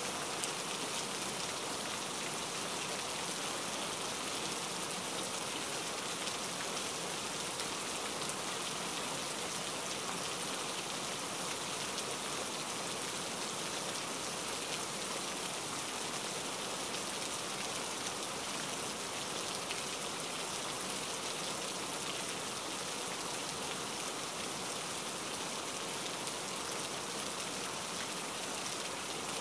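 Steady rain falling: an even, bright hiss with no breaks or changes.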